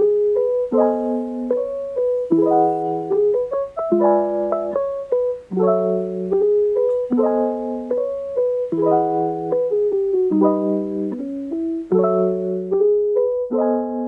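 Instrumental background music: chords and a melody, the chords changing about every one to two seconds.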